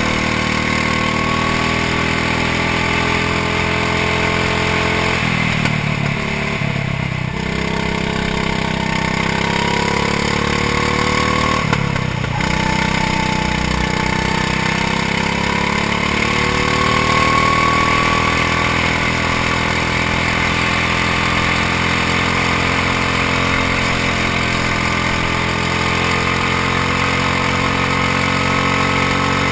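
Go-kart engine running hard at racing speed, its pitch climbing along the straights. Twice, about six seconds in and again about twelve seconds in, the revs drop sharply as the throttle is lifted for a corner, then climb again.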